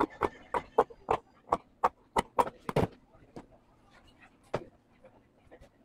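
Tailor's scissors snipping through denim in quick repeated cuts, about ten snips in the first three seconds, then a single sharp snip more than a second later.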